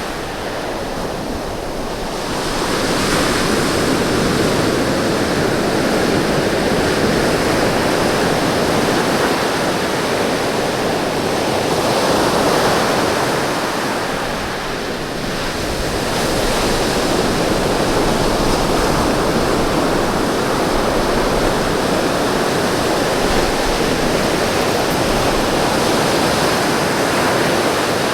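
Ocean surf breaking and washing onto a beach: a continuous roar of rushing water that eases for a moment twice and swells back up.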